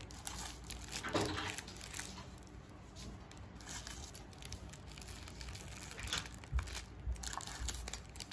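Clear plastic packaging crinkling as it is handled and lifted out of a cardboard gift box, in irregular crackles and rustles.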